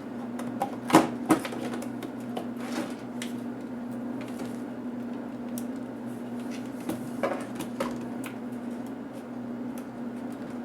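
Scattered clicks and light taps from an HP DV4 laptop's parts being handled during disassembly, the loudest pair about a second in, over a steady low hum.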